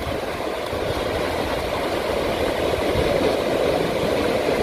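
Steady roar of ocean surf breaking on a beach.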